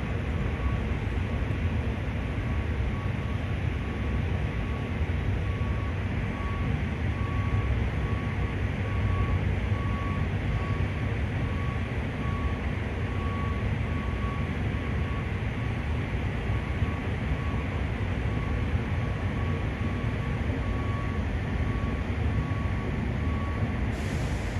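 Steady low rumble of outdoor city background noise, with a regular run of short high electronic beeps that stops just before the end.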